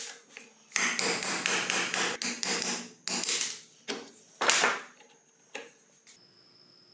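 Hammer striking a steel pin punch to drive the retaining pin out of a rusty cast knob on a threaded shaft, metal on metal. A quick run of strikes starts about a second in, followed by a few shorter groups of blows and a last single knock.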